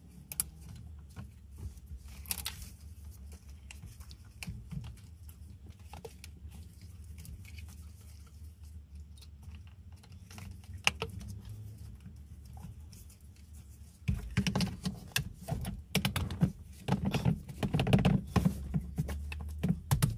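Small plastic clicks and rattles of electrical connectors being plugged into the driver airbag module of a 2011 Hyundai Sonata, then, about two-thirds of the way in, a run of louder knocks and clatter as the airbag module is pushed back into the steering wheel hub.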